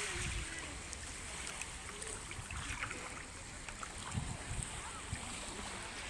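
Calm seawater lapping gently in pebbly shallows, with wind rumbling on the microphone in low thumps.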